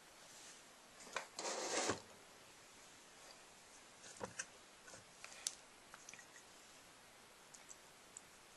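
Quiet handling noise: a short rustling rub a little over a second in, then scattered small clicks and taps.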